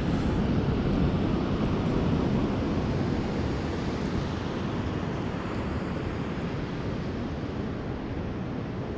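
Steady rushing noise with no distinct events, heaviest in the low range and easing off slightly about three seconds in.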